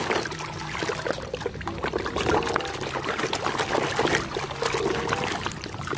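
Water splashing and trickling in a basin as a muddy plastic toy motorbike is washed by hand, with many small irregular splashes and clicks.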